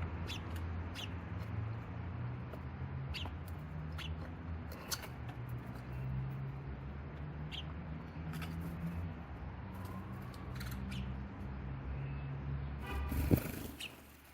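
Small birds, sparrows, giving short, sharp chirps every second or so over a steady low hum of distant traffic. A car horn toots briefly near the end and is the loudest sound.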